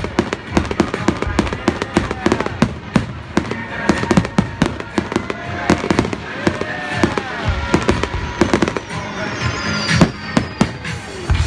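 Aerial fireworks display: a rapid run of bangs and crackles, several a second, with a few whistles that fall in pitch near the middle.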